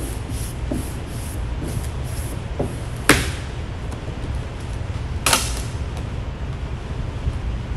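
Two short, sharp rasping swishes about two seconds apart from vinyl wrap film being worked on a car hood, over a steady low hum.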